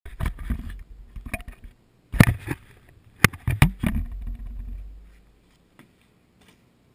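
Close handling noise of an action camera being set down and adjusted on the floor: a series of knocks and scrapes against the housing with a low rumble, fading out after about five seconds.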